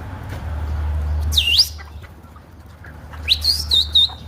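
Young chicks peeping: one high call about a second and a half in, then a quick run of three or four high peeps near the end, over a steady low hum.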